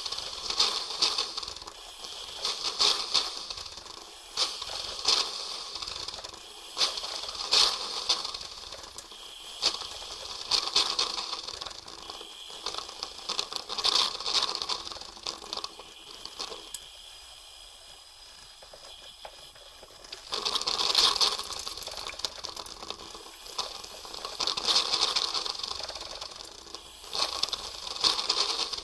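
Coffee machine running, hissing and sputtering in repeated surges every second or two, with a quieter lull a little past the middle.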